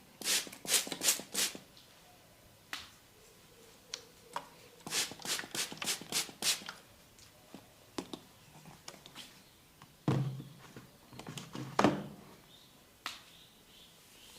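Hands patting and slapping on a person during a massage: quick runs of four or five light strokes, and two heavier, deeper slaps about two thirds of the way through.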